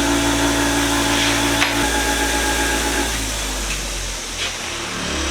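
Bench grinder's electric motor running steadily, then switched off with a click about a second and a half in and winding down, its hum falling away over the following few seconds.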